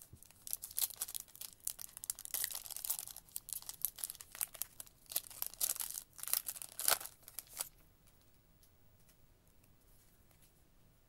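A foil trading-card pack wrapper being torn open and crinkled by hand, a dense crackling that stops about three quarters of the way through.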